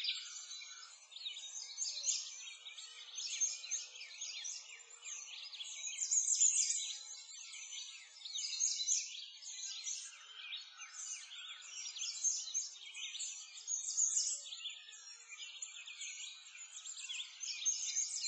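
A dense chorus of many songbirds chirping and twittering at once, a constant high-pitched mass of overlapping short calls with nothing low beneath it.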